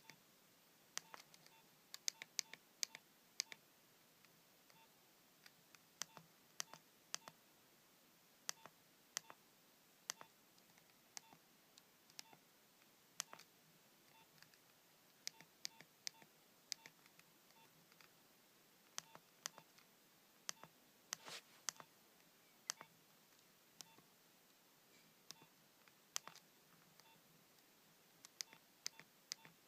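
Keypad of a Nokia 7250i mobile phone being pressed: sparse, irregular button clicks, many with a short keypad beep, as the phone's menus are stepped through.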